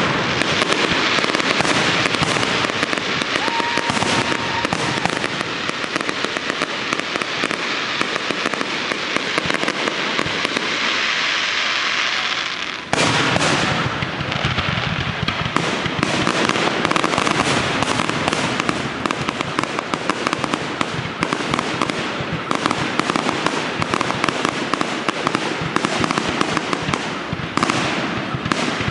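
Fireworks display: a dense, continuous barrage of shell bursts and crackling, with a sudden short break about thirteen seconds in before it picks up again.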